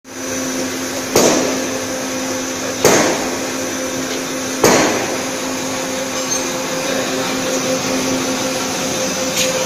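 Twin-screw snack extruder production line running with a steady machine hum, broken three times in the first five seconds by sharp metallic knocks.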